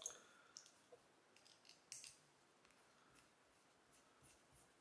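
Faint clicks and light scraping of a 316L stainless steel safety razor being handled and its parts worked in the fingers, most of them in the first two seconds.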